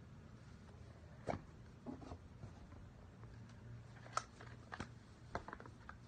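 Hands handling an iPhone 11 Pro Max's cardboard box: a scatter of light taps, clicks and cardboard rubs as the box is pulled open and the phone lifted out, over a faint low hum.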